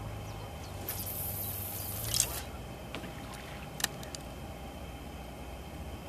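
A brief rustle of handling, then a sharp click and a few lighter clicks and taps as a fishing rod is laid back onto the rod pod's rests.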